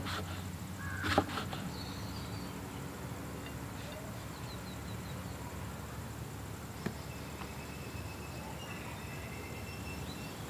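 Two knocks of a knife on a wooden log chopping block near the start, as brinjal is cut and gathered. After that comes quiet rural background with faint bird chirps and a single light click about seven seconds in.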